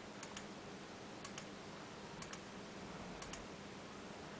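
Faint clicking at a computer: a handful of short, sharp clicks, several in close pairs, over a low steady hum.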